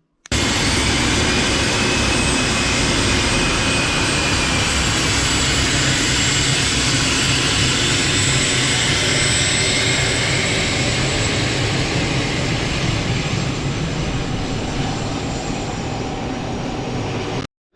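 Jet engine noise from the Cessna Citation Mustang's Pratt & Whitney PW615F turbofans running at steady high power: a loud, even rush with a faint high whine. It eases slightly near the end and cuts off abruptly.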